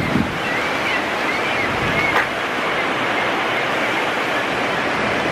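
Steady rush of river water pouring from outflows and running over a shallow, rocky riverbed, with a few short bird calls in the first two seconds and a brief knock about two seconds in.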